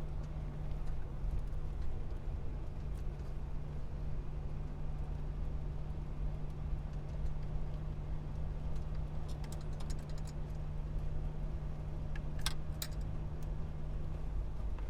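Car engine running steadily: a constant low rumble with a steady hum that holds the same pitch and level throughout. A few sharp clicks sound about twelve and a half seconds in.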